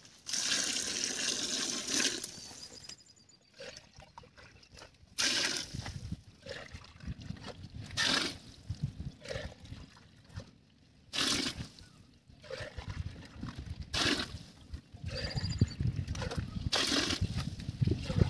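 Water poured by the vessel-load into a large metal cooking pot of mushroom masala, several pours about three seconds apart: the cooking water going in before the rice is added.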